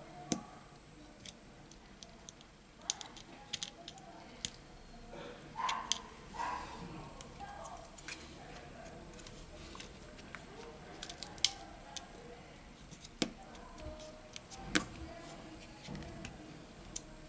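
Small parts of an opened smartphone being handled during disassembly: irregular sharp clicks and taps of plastic and metal pieces, with brief rustling near the middle.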